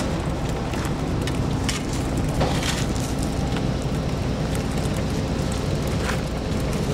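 Concrete mixer truck's engine running steadily while wet concrete pours down its discharge chute, with a steady rushing noise and scattered sharp ticks.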